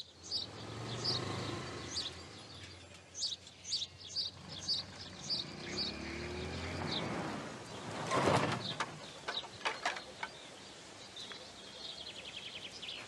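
Birds chirping, short high calls repeated at about two a second, over a low rumble. About eight seconds in there is a loud whoosh, followed by a few sharp clicks, and a faint rapid trill near the end.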